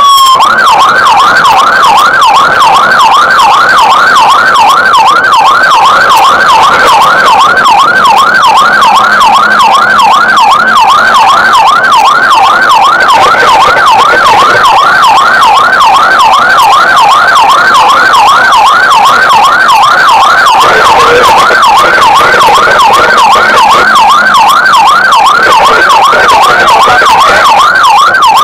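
Fire engine's electronic siren on an emergency run, sounding a fast up-and-down yelp of about three sweeps a second, loud and steady.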